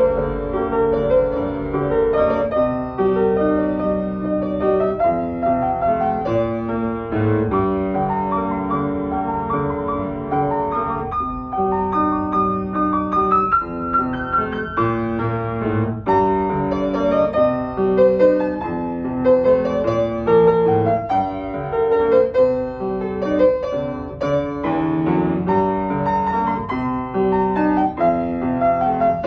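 Grand piano played solo: a continuous passage of notes without pause.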